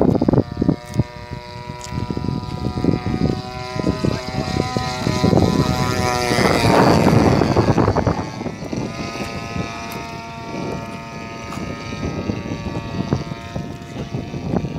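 Piper J3 Cub's engine and propeller droning steadily in flight. It grows loudest as the plane passes overhead about halfway through, the pitch dropping as it goes by, then it settles back to a steady drone.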